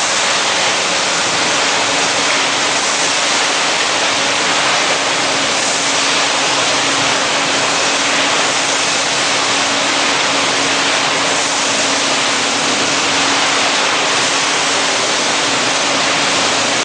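Factory machinery running with a steady, loud hiss and a constant low hum underneath, without knocks or changes.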